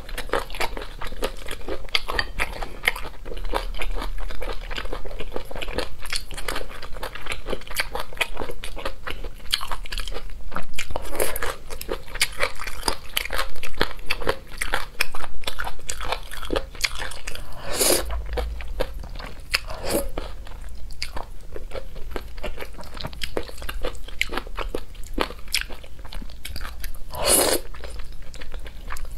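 Close-miked eating: wet chewing and crunching of boneless chicken feet and spicy noodles, with many quick mouth clicks and smacks. A few louder slurps of noodles stand out, one about 18 seconds in and another near the end.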